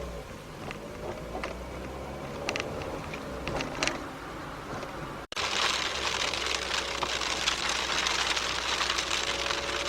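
Cabin noise of a 1998 Datsun March on the road, picked up by the dashcam: a steady engine and road hum with scattered light clicks. About five seconds in it breaks off abruptly and comes back as a louder, hissier road noise.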